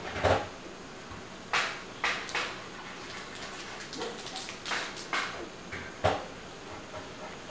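Coconut milk simmering in a pan, with irregular sharp pops every second or so over a low steady hiss.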